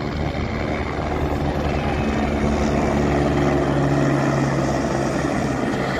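Light helicopter flying past overhead, with a steady drone of its rotors and engine. It grows louder up to about four seconds in, then eases off slightly.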